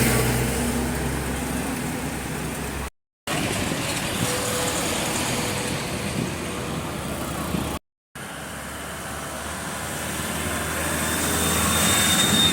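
Steady road-traffic and vehicle noise, cut off twice by brief drops to silence, about three seconds in and again near eight seconds, then growing louder toward the end.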